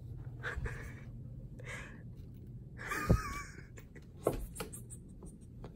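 Quiet breaths close to the microphone, with a short high wavering squeak about three seconds in and a few light clicks.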